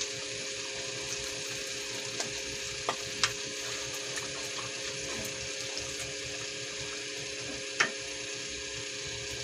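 Tomato-sauce stew simmering and sizzling steadily in a nonstick pan as sliced hotdog and raisins are tipped in and stirred with a wooden spoon, with a few light knocks of the spoon and ingredients against the pan.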